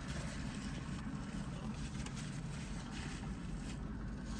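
Steady low rumble of a car idling.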